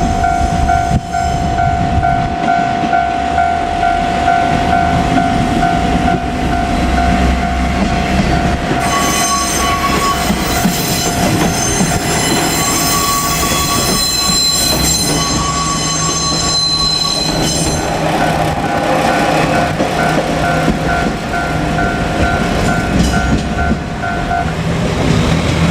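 A level crossing warning bell rings in a steady repeating rhythm as a KiHa 47 diesel railcar passes with its diesel engine running. In the middle the train's sound rises into a high squeal of wheels on rail.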